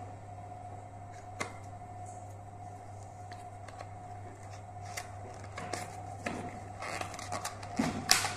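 Paperboard cotton-bud box being opened by hand: scattered light clicks and crinkles of the cardboard flap, growing busier over the last few seconds, over a steady faint hum.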